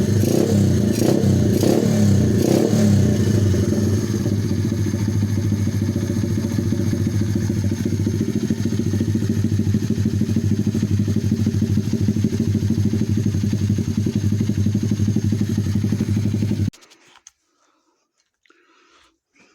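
A hot 125cc pit bike's single-cylinder four-stroke engine runs with a few quick throttle blips in the first three seconds, then idles steadily. Near the end it cuts off suddenly as the engine is shut down.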